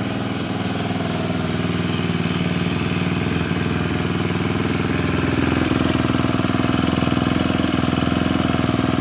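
Honda GX25 four-stroke brush cutter engine running with its blade spinning, a steady engine note that grows louder about five seconds in.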